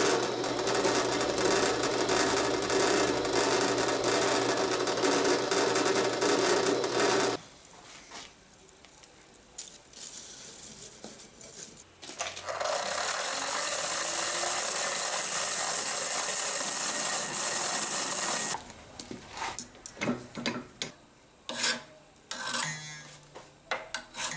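Drill press boring into a wooden knife-handle block, a steady motor hum under the cutting noise, stops about seven seconds in. About five seconds later a steady rushing hiss from the firebrick forge heating the bearing-steel blade runs for about six seconds. Scattered metal clinks and knocks follow as the hot blade is worked in a bench vise.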